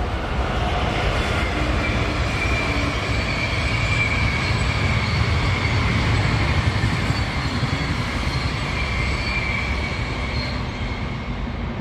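A train passing: a steady noise that swells to a peak around the middle and eases off again, with thin high squealing tones above it.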